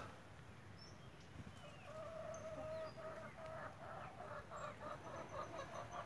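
Chicken clucking faintly: one drawn-out note about two seconds in, then a quick run of short clucks, about four a second.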